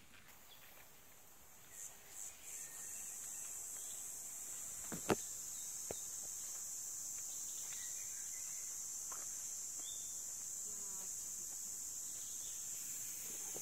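Insects, cricket-like, singing in a continuous high-pitched buzz that starts with a few brief stutters about two seconds in and then holds steady. Two sharp clicks about five seconds in.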